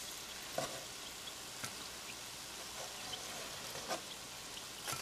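Flour-dredged morel mushrooms frying in hot oil in a pan: a faint, steady sizzle with a few small pops scattered through it.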